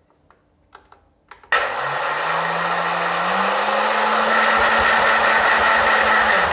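Health Master blender motor starting about a second and a half in, its pitch climbing as it spins up, then running steadily as it churns frozen peaches and strawberries with a little water, and winding down near the end. The stop is the blender's safety cut-out, which switches it off when the jar is shaken, taking it for a drop.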